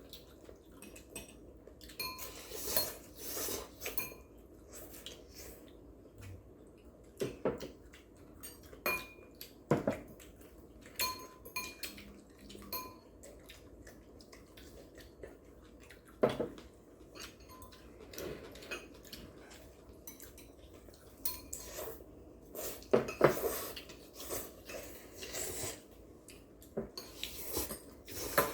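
Eating utensils clinking and scraping against bowls and plates during a noodle meal: irregular short clicks and knocks, some with a brief ring, a few of them sharper and louder.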